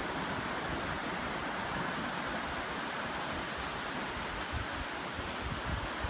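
Small ocean waves rolling in and washing up a flat sandy beach, a steady surf hiss, with a low buffeting of wind on the microphone underneath.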